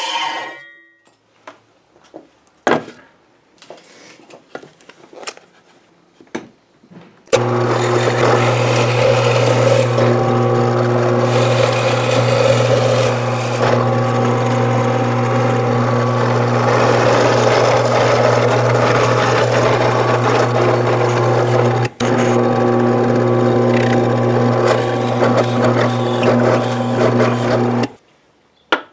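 Drill press motor running with a steady low hum while a Forstner bit bores into a wooden board. It starts about seven seconds in, after a few light knocks of handling, and breaks off once for a moment before stopping near the end.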